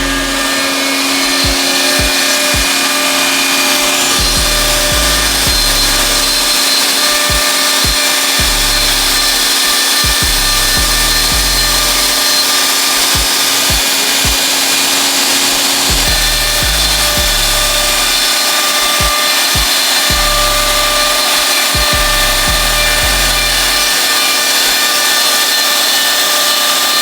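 Wood router running steadily with a whine, cutting a pocket into a round wooden coaster blank.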